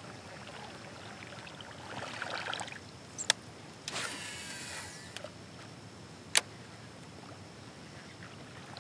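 Shimano SLX DC baitcasting reel cast: a sharp click, then about a second of spool whirring with the electronic DC brake's gliding whine, and another sharp click a couple of seconds later as the reel is engaged. A brief rustle comes just before the cast.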